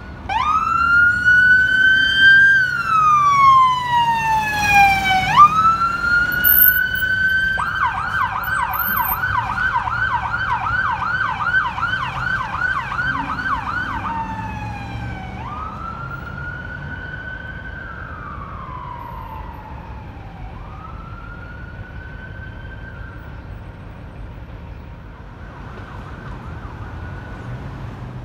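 Electronic siren on a fire department pickup truck responding to an emergency: it starts in a wail that rises and falls slowly, switches to a fast yelp of about three sweeps a second for several seconds, then goes back to a slower wail that fades as the truck drives away.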